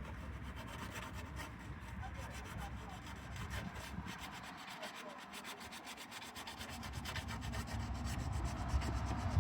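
Hand sanding a rusty spot on a car body panel with 240-grit sandpaper: a dry scratchy rubbing in quick repeated strokes, easing off briefly midway.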